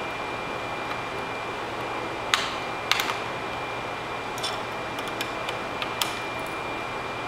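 Laptop parts being handled during a RAM swap: a few sharp plastic clicks and taps, the loudest about two and three seconds in, then lighter ticks, over a steady hiss with a faint high tone.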